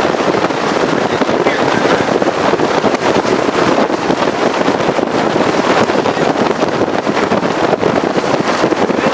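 Strong wind buffeting the microphone: a loud, steady rush of noise with constant small gusts.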